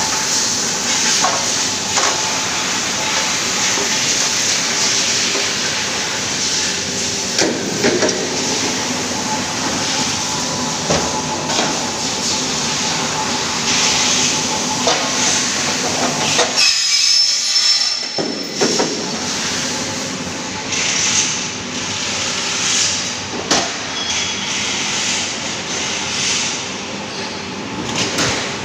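Metalworking shop noise: machinery running with a steady hiss, broken by occasional sharp metallic clanks from a power press punching aluminium scaffolding-plank profiles.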